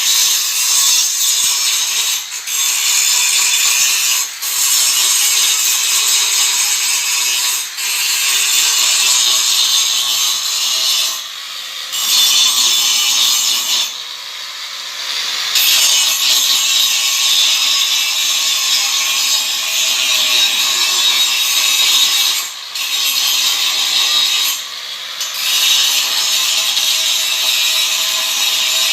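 Angle grinder grinding down welded seams on metal: a steady, loud grind with a motor whine. It eases off briefly several times, longest a little before and after the middle.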